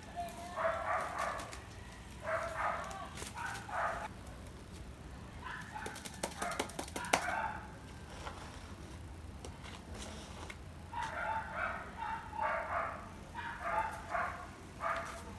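Animal calls in short repeated bursts, a few in quick succession, then a pause of several seconds before another run of calls near the end. A quick run of light clicks falls about six to seven seconds in.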